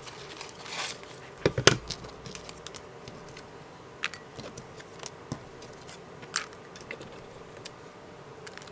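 Paper rustling and the knocks and clicks of plastic craft punches and paper being handled on a cutting mat, with a short cluster of sharp knocks about a second and a half in and a few light single clicks after.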